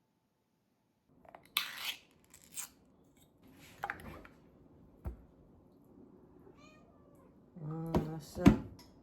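Domestic cat meowing a few times amid scattered short clatters and knocks.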